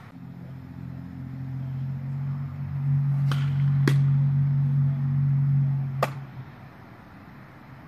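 A low, steady mechanical hum with a clear pitch swells and then fades away about six seconds in. Over it come sharp pops of a baseball smacking into a leather glove: two close together near the middle, when the pitch is delivered, and another about six seconds in.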